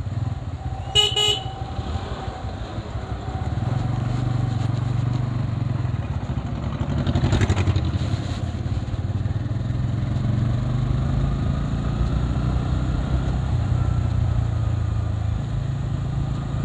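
Motorcycle engine running steadily with road noise while riding through traffic. A vehicle horn gives a short toot about a second in, and a brief louder rush of noise comes about halfway through.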